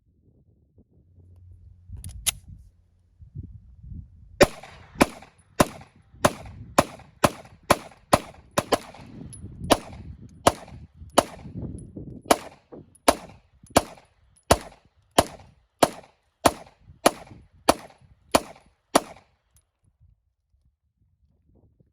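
Semi-automatic gunfire: two sharp shots about two seconds in, then a steady string of more than twenty shots at roughly two a second, stopping about three seconds before the end.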